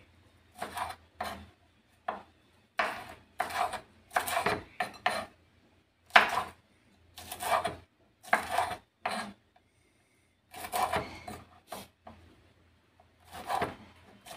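Chef's knife slicing red bird's eye chilies on a wooden cutting board: a string of short scraping cuts, irregular, roughly one or two a second, with a brief pause about two-thirds of the way through.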